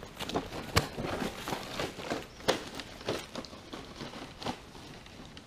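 Footsteps crunching through dry leaf litter and twigs, a run of irregular crackles and snaps.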